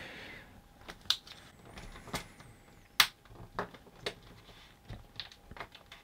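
Small, sharp plastic clicks and snaps, irregularly spaced, the loudest about three seconds in, as a small screwdriver prises apart the clipped-together halves of a soft-plastic lever-type wire connector.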